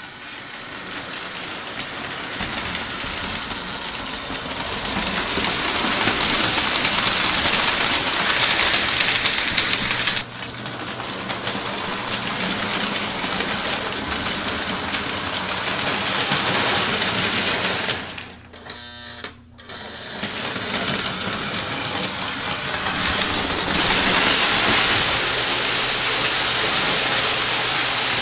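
O-gauge three-rail toy trains running on the layout: small electric motors whirring and wheels clattering over the track, growing louder over the first several seconds. The sound drops suddenly about ten seconds in and cuts out briefly around nineteen seconds, then carries on.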